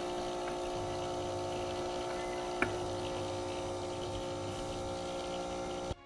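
Small electric pump running with a steady hum, pushing cleaning fluid through its tubing for the whiteboard eraser's deep clean cycle. A single click about two and a half seconds in, and the sound cuts off suddenly near the end.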